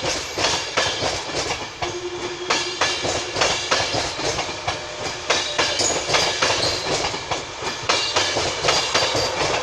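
InterCity 225 set of Mark 4 coaches rolling past, its wheels clicking over rail joints and pointwork in a continuous clickety-clack, with a faint brief squeal about two seconds in.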